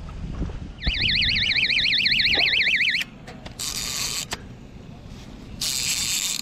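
A carp fishing electronic bite alarm sounds with a rapid warbling tone for about two seconds: a fish has taken the bait and is pulling line. It is followed by two short bursts of high buzzing from the reel as line is pulled off the spool.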